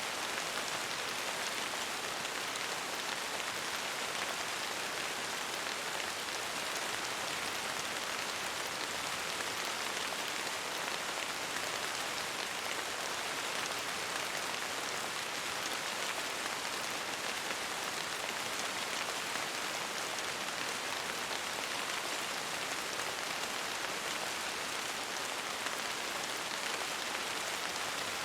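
Steady rain falling, an even hiss of many drops that does not change.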